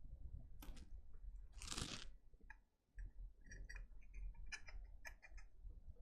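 Faint clicks and light rustling of a programmer's plastic casing and internal parts being handled as the loosened case comes apart, with a brief soft rushing sound a little under two seconds in.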